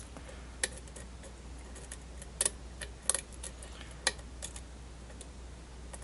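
Light, irregular metallic clicks of a lock pick working the pin stacks of a brass half Euro cylinder held under tension, a dozen or so scattered ticks as the pins are set.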